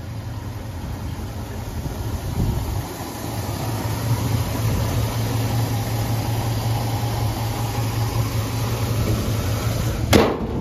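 1964 Chevrolet pickup's engine idling steadily with an even low hum. A sharp bump sounds once just after ten seconds.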